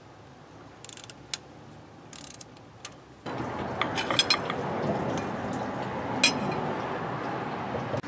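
Short runs of clicking from a hand tool loosening the 10 mm bolts on a Cummins diesel's thermostat housing. About three seconds in, a steady hiss comes in, with scattered light metal clinks as the housing is worked loose and pulled off.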